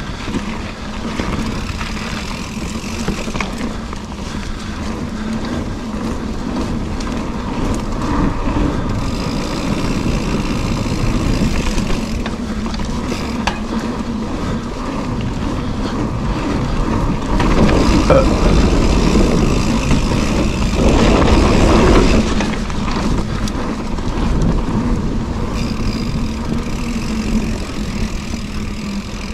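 Mountain bike descending a dirt singletrack: wind rushing over the microphone mixed with tyre noise on the dirt. It gets louder for a few seconds about two-thirds of the way through, then eases.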